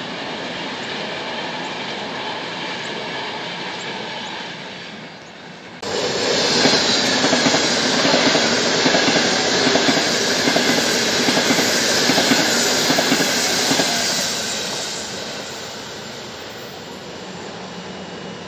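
An Intercity passenger train rolling past at speed, a steady rail-and-wheel noise. About six seconds in the sound jumps to a much louder, dense rush of a Frecciabianca train running fast through the station, which fades away over the last few seconds.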